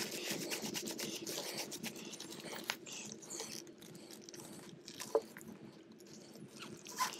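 Handling noise from fitting a bailout valve onto a closed-circuit rebreather's breathing hoses: rubber hose and plastic fittings rubbing and creaking, with scattered small clicks, the sharpest a little under 3 s in and about 5 s in, over a faint steady hum.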